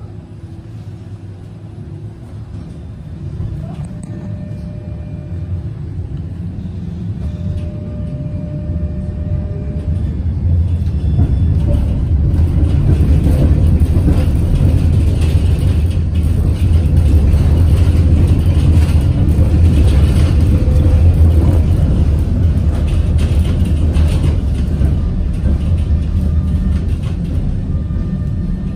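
Inside a ČKD KT8D5R.N2P articulated tram as it gathers speed: the low running rumble of wheels on rail and the drive grows steadily louder over the first dozen seconds. It then runs at speed and eases off a little near the end.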